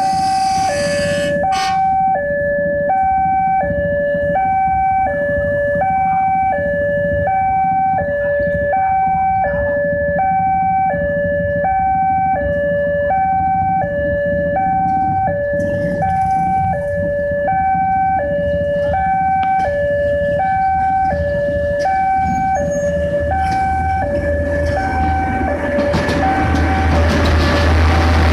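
Two-tone electronic warning alarm alternating between two notes about once a second, over a steady diesel engine drone from railway track maintenance machinery. A loud horn-like sound stops about two seconds in, and the engine noise grows louder near the end.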